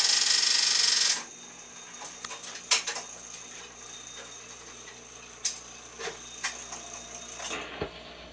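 Wurlitzer 1400 jukebox's Simplex record-changing mechanism cycling after a selection. A loud rasping whirr fills about the first second, then scattered clicks and clunks sound over a faint steady hum as a 45 is brought onto the turntable.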